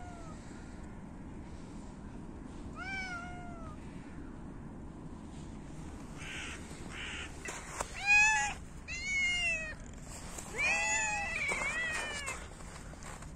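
Cats meowing: a faint meow at the start, another about three seconds in, then a run of loud meows from about eight seconds in, two overlapping near the end.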